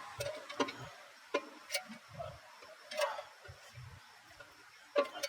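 Scattered light clicks and taps, about half a dozen at uneven intervals, with soft low thuds between them. This is tools and parts being handled at a brake caliper while its piston is pushed back.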